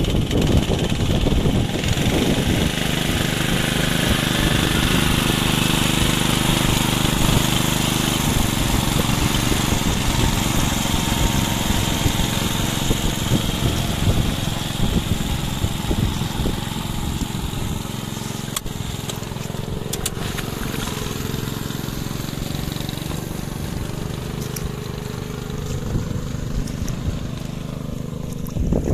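Honda GX120 single-cylinder four-stroke engine of a walk-behind rice transplanter running steadily under load as the machine works through a flooded paddy.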